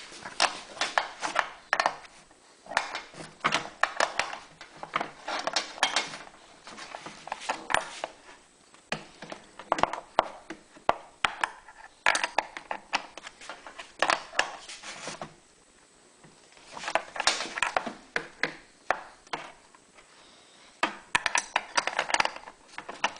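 Small brass fittings clinking and rattling in irregular bursts as they are handled and threaded together, with quieter pauses in between.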